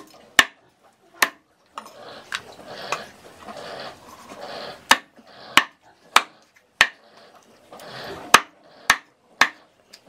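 Cleaver chopping raw chicken on a round wooden chopping block: about ten sharp chops coming in short runs, with a pause of a couple of seconds in the middle.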